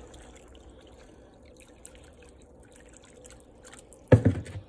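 Water poured into a pan of soup, faint dripping and splashing in the liquid, then a loud thump about four seconds in.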